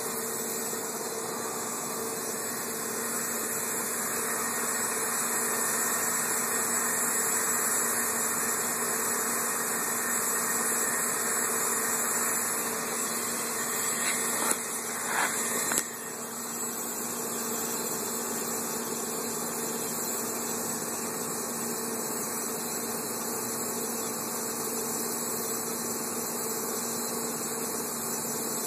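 A steady low hum with a hiss over it, broken by a few brief sharp sounds about halfway through.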